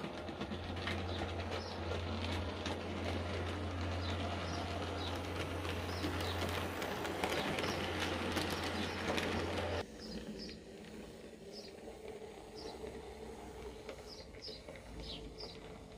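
00 gauge model train running past on the layout: a steady motor hum with wheels rattling and clicking over the track, louder as the brake van and coaches pass close. It cuts off suddenly about ten seconds in, leaving birds chirping faintly.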